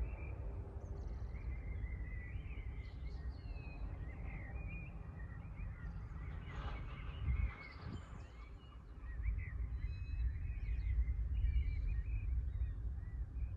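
Small birds chirping and singing with many short calls over a steady low rumble, which drops away about eight seconds in and then builds again.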